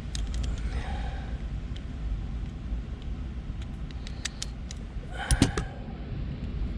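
Wire cutters snipping and clicking as electrical wire is trimmed: scattered small sharp clicks, with a louder cluster about five seconds in, over a steady low rumble.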